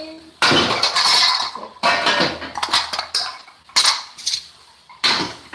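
Pot lids clattering and knocking against each other as they are handled and stacked into a cabinet, in four separate bursts with a metallic ring.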